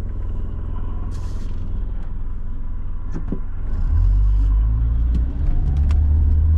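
Car's engine and road rumble heard from inside the cabin: low and steady while the car waits, then louder about four seconds in as it pulls away, with a few light clicks.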